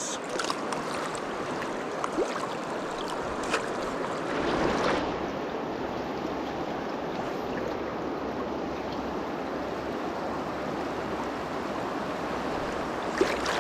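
Steady rush of river current flowing past a wading angler, with a few faint clicks and a brief swell in the water sound about four to five seconds in.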